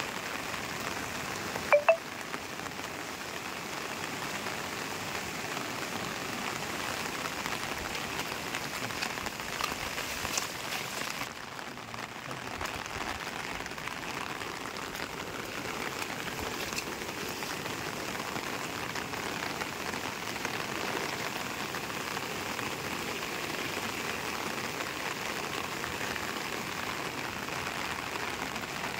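Fast, turbulent floodwater in a swollen stream, rushing as a steady, even hiss. About two seconds in, a brief, loud beep-like tone cuts through.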